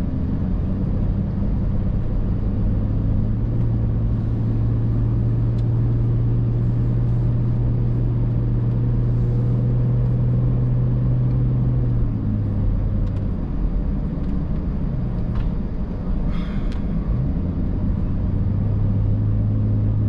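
Car engine and road noise heard from inside the moving car: a steady low engine hum that drops about twelve seconds in and picks up again near the end.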